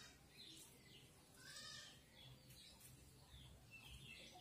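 Near silence, with a few faint, short chirp-like animal calls in the background.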